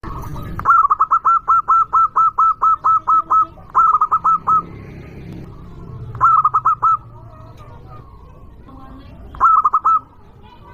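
Zebra dove (perkutut) singing: a fast run of about a dozen short, ringing cooing notes at roughly four a second, then three shorter bursts of a few notes each.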